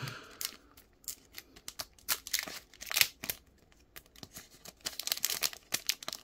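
A trading card booster pack being torn open, its wrapper crinkling and crackling in short, irregular bursts as the cards are pulled out.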